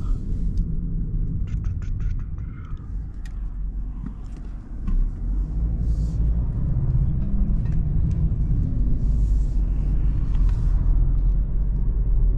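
Cabin sound of a 2020 BMW 330i under way: the 2.0-litre turbocharged four-cylinder and road noise make a low, steady rumble. It eases off a little, then grows louder about five seconds in as the car accelerates.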